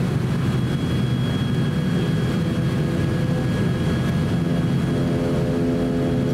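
ATR 42-600 turboprop engines and propellers at low taxi power, heard inside the cabin as a steady low drone with a faint, thin high whine over it.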